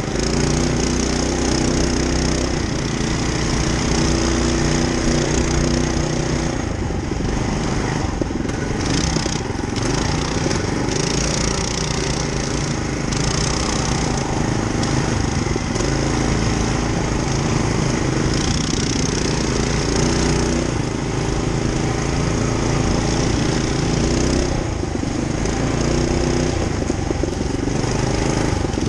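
Small single-cylinder 212cc four-stroke mini bike engine running under load on a trail ride. Its pitch rises and falls with the throttle and drops off briefly a few times, over steady rushing noise.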